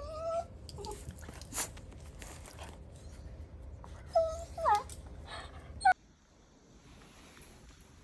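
A dog whining in short, high, wavering whines: once at the start and again in a cluster about four seconds in, with a few sharp clicks and knocks in between. It all cuts off suddenly about six seconds in.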